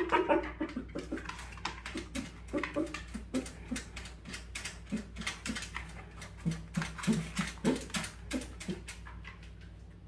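Long-haired dachshund whimpering in short repeated whines, mixed with many quick sharp scratching clicks, as it fusses at the gap where a puppy is sleeping.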